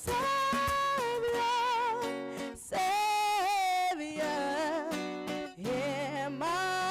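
A song: a singer holding long notes with vibrato over guitar accompaniment.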